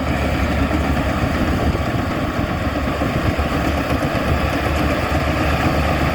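Tamco rice combine harvester's Isuzu diesel engine running steadily, a continuous low drone with machinery noise over it.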